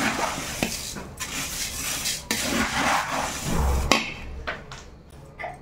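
A metal spatula stirring dry, crisp roasted poha chivda in a large steel pot: a rustling, scraping hiss with a few sharp metal knocks against the pot. It grows quieter near the end.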